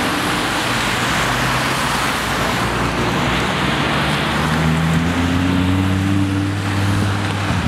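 Batmobile replica car driving past on a wet road: a steady engine hum that rises gently in pitch about halfway through, under a loud hiss of tyres on wet tarmac.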